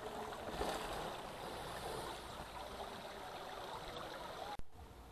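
Small rocky mountain stream babbling and rushing steadily, with a brief break near the end.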